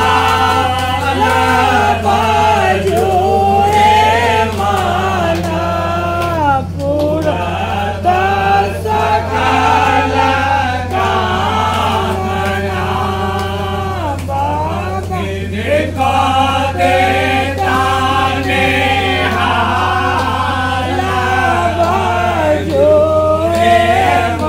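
Voices singing a Maithili nachari, a devotional song to Shiva, in a continuous melodic line with gliding pitch over a steady low hum.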